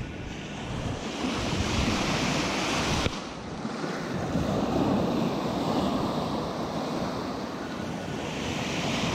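Atlantic surf breaking and washing up a sandy beach, swelling and easing with each wave. The sound changes abruptly about three seconds in.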